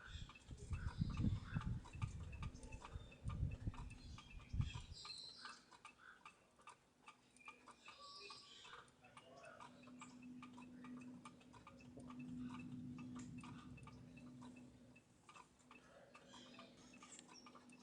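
Faint, irregular small clicks and ticks with a few short high chirps. A low rumble runs through the first five seconds, and a low steady hum comes in about ten seconds in and fades around fifteen.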